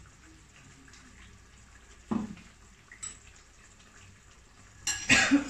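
Faint bubbling of a masala gravy simmering in a kadhai, with a brief knock about two seconds in. Near the end comes a louder clatter with a ringing clink, a glass bowl and utensil being handled.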